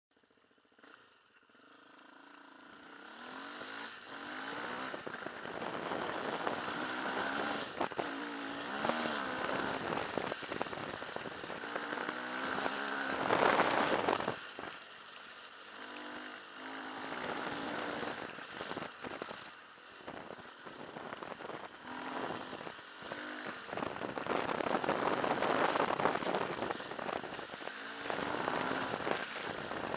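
Off-road rally motorcycle engine revving up and down as it is ridden along a gravel track, over a steady noisy rush of wind and tyres. The sound fades in over the first few seconds, and the loudest surge of throttle comes about halfway through.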